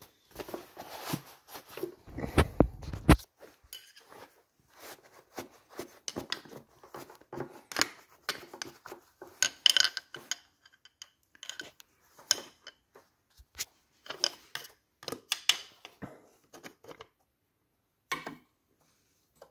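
Irregular small clicks, light metallic taps and scrapes, and cloth rustling: hand work with a screwdriver and a shop rag around a motorcycle carburetor's float-bowl drain screw, with camera handling. A brief low rumble about two seconds in is the loudest thing.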